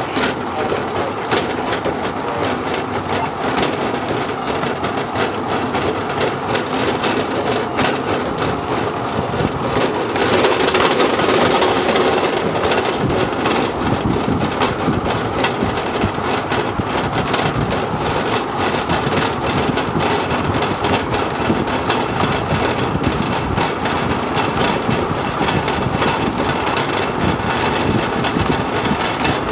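Rail bike rolling along an old railroad track, its steel wheels on the rails giving a steady rolling rattle full of small clicks. It gets a little louder about ten seconds in for a few seconds.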